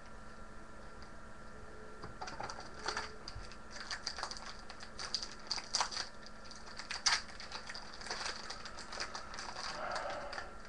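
A trading card pack wrapper being torn open and crinkled by hand: irregular crackles and snaps starting about two seconds in, the sharpest about seven seconds in, easing into a softer rustle near the end.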